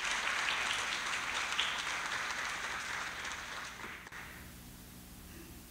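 Audience applauding, the clapping dying away about four seconds in and leaving a faint steady low hum.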